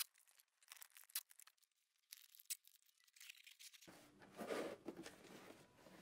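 Faint crinkling of a plastic bag and small clicks and ticks as finished parts are packed. About four seconds in, a cardboard box is picked up and handled, with a louder shuffling and a low steady hum beneath.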